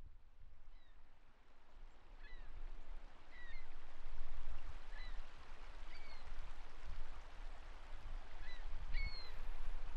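Steady rushing water that swells in over the first few seconds, with a series of short, high bird calls scattered through it.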